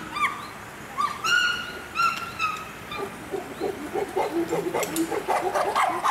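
Chimpanzees calling: a few short, high, arched shrieks, then from about three seconds in a quick series of lower rising-and-falling hoots.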